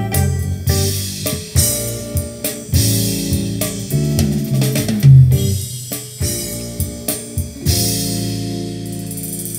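Band music with drum kit, bass and guitar played back through a Grundig V304 integrated stereo amplifier and a pair of loudspeakers, with a heavy bass line and one especially loud drum hit about five seconds in; near the end a held chord dies away.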